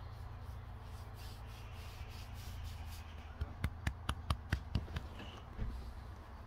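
A hand rubbing and patting a boxer dog's short coat right by the phone's microphone, with a quick run of about eight sharp taps around the middle, over a steady low rumble.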